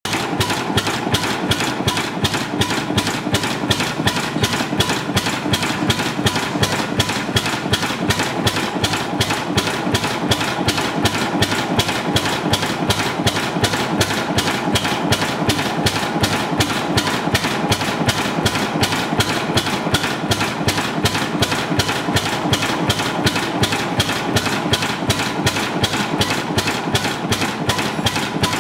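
1926 Klima single-cylinder horizontal stationary combustion engine running steadily, its flywheel turning, with an even beat of about three strokes a second.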